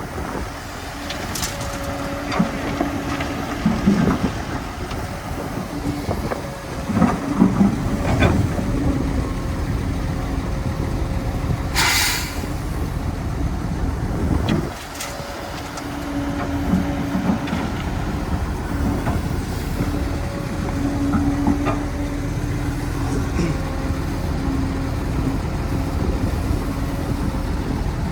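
Heavy diesel construction machinery, an excavator and dump truck, running steadily with a low hum. Scattered knocks and clanks come through, and a short hiss sounds about twelve seconds in.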